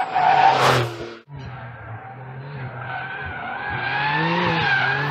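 2022 Porsche 911 GTS (992), turbocharged three-litre flat-six through its sports exhaust: the car passes close at speed in the first second with a quick drop in pitch, then after a sudden break the engine note climbs steadily in pitch and loudness as it accelerates.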